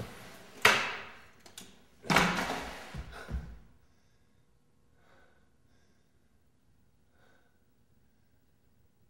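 Three loud bangs in quick succession: two big ones about a second and a half apart, then a smaller one, each dying away over about a second. After them the room goes nearly quiet.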